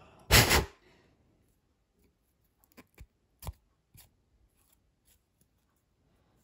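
Handling noise from cleaning a folding knife's handle scale and steel liner with a cotton swab: a short, loud rustle under a second in, then a few light clicks and taps.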